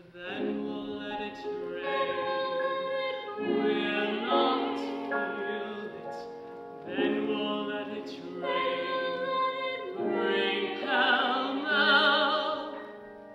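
Wordless singing in harmony from a stage musical duet: long held notes with vibrato, changing every couple of seconds.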